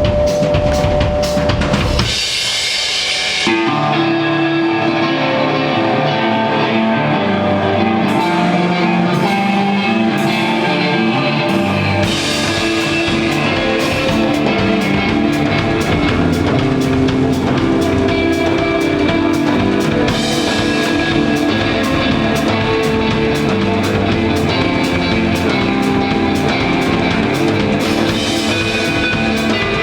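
Rock band playing live, drum kit and electric guitar, with the low end filling in about twelve seconds in.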